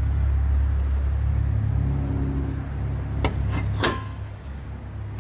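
Car hood being lowered and shut: a click, then a sharp metallic clank with a brief ring about four seconds in, over a steady low rumble that drops away after the clank.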